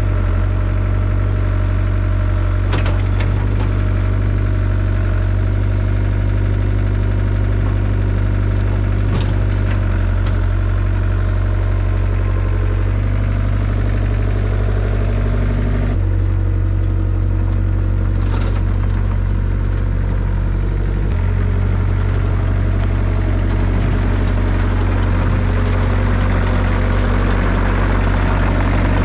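Caterpillar 307 excavator's diesel engine running steadily, with a few short sharp knocks. The engine note shifts a little past halfway through.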